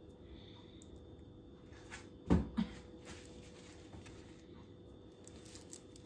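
Quiet kitchen room tone with a faint steady hum; about two seconds in, a dull knock and a softer second one just after, as things are handled on the counter, then a few faint light clicks.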